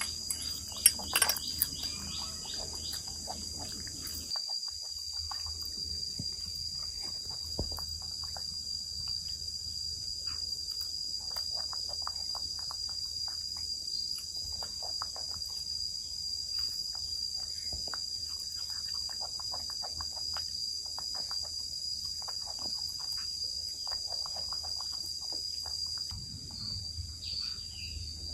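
Steady high-pitched buzz of insects, with scattered faint clicks and taps from a monkey eating pieces of boiled bamboo shoot at a table. A few sharper knocks about a second in.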